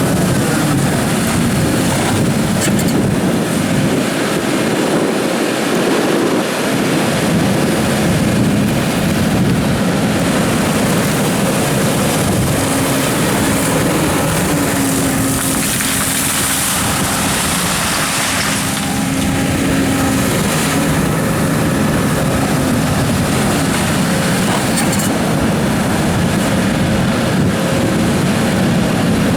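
Doosan DX300 excavator's diesel engine running steadily while the machine works, with a steady tone rising in over it for several seconds around the middle.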